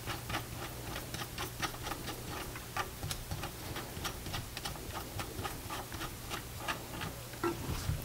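Quick, irregular light metal ticks and clicks from nuts and bolts being handled and threaded by hand at a bicycle hub's sprocket mount, over a faint steady low hum.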